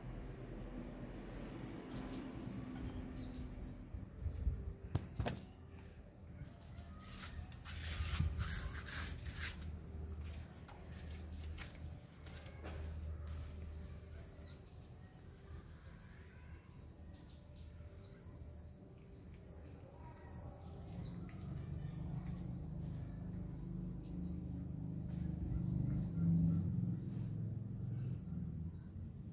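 Small birds chirping in quick, short falling notes, thickest in the second half, over a low outdoor rumble. A few sharp knocks come in the first ten seconds.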